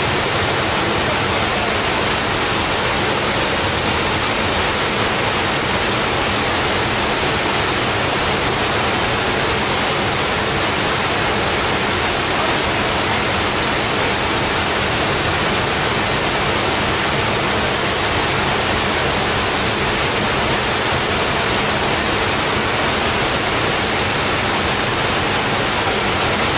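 Two-tiered waterfall, its falling water making a loud, steady, even rush.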